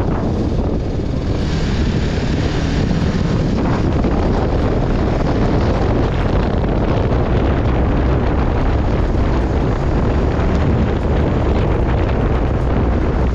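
Wind buffeting the microphone of a moving vehicle: a loud, steady rush with heavy rumble low down.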